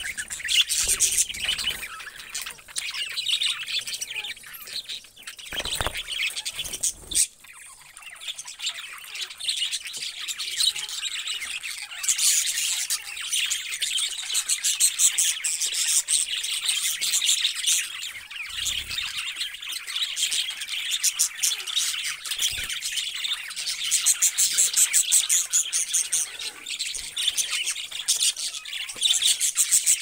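A flock of budgerigars chattering and warbling nonstop in fast, high-pitched chirps. A couple of short knocks come about six and seven seconds in.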